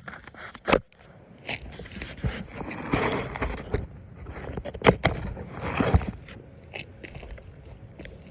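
Scraping and a few sharp knocks from work on asphalt roof shingles, with louder scraping spells in the middle.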